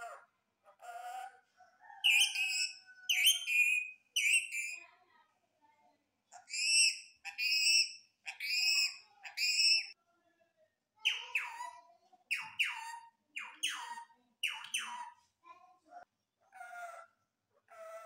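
Rose-ringed parakeet mimicking human speech, saying a name. In between it gives loud, shrill screeches in three bursts, the last a quicker run of falling squawks. It talks again near the end.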